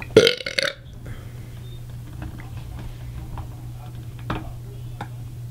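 A man's short, loud vocal outburst right at the start. A steady low hum follows, with a few faint clicks and taps, the clearest about four seconds in.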